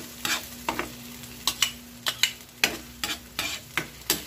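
Minced garlic and onion frying in oil in a nonstick pan over medium heat, sizzling steadily. A metal spoon stirs them, scraping and tapping against the pan about three times a second.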